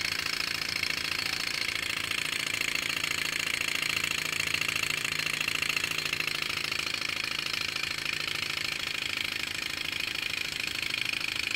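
Two-cylinder thermal-lag Stirling engine running unloaded, with its generator removed, at about 1,000 RPM: a steady, fast, even mechanical clatter from the spinning flywheel and crank mechanism.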